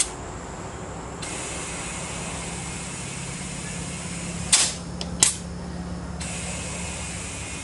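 Air-hose tyre inflator on a ute's tyre valve: a steady hiss of air filling the tyre for about five seconds, broken in the middle by two short, sharp blasts of escaping air. The tyre is being topped up because it was down on pressure.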